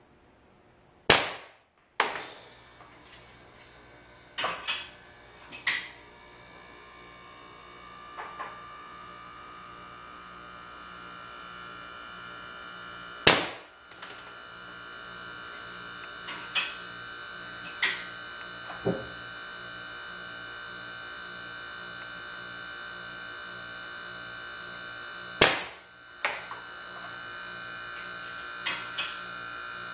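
Homemade .177 smooth-bore air gun, fired by a 24 V solenoid valve from a 150 psi chamber, going off three times about twelve seconds apart. Each shot is a sharp crack followed by a lighter click, with smaller clicks between shots and a steady electrical hum underneath.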